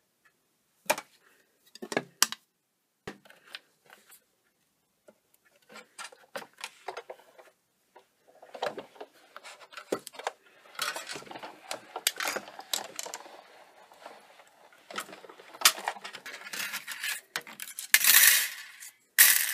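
Acrylic cutting plates and a metal die clicking and knocking as they are handled and run through a Big Shot die-cutting machine: scattered taps at first, then a longer stretch of rubbing and clicking with sharp knocks, and a short loud rustle of cardstock being freed from the die near the end.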